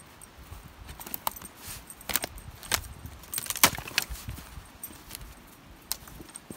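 Footsteps crunching through dry brush and twigs: a string of irregular sharp snaps and crackles, thickest and loudest about two to four seconds in.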